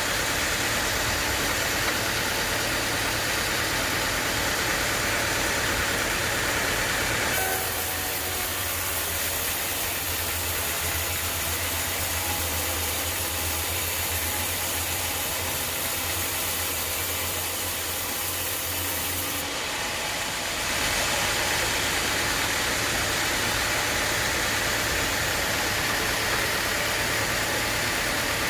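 Band sawmill running steadily. From about seven to twenty seconds in its sound changes to a deeper hum with a brighter hiss, then goes back to its first steady sound.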